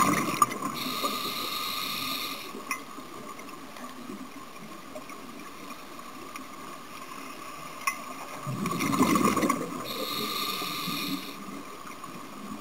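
Underwater scuba sound: regulator breathing heard twice, about nine seconds apart, each breath a rush of bubbles and a hiss, over a steady faint whine.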